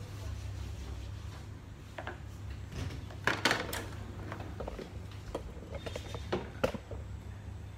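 Scattered light clicks and rustles of hands handling things, loudest a little over three seconds in, over a steady low hum.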